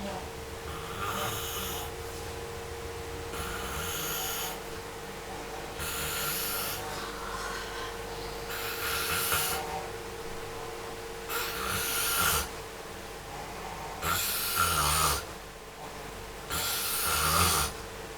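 A person snoring in deep sleep while being given an urut massage, with about seven snores at an even pace of roughly one every two and a half seconds.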